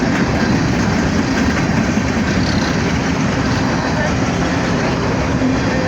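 Empty coal hopper cars of a freight train rolling past at speed, a steady, loud noise of steel wheels on rail.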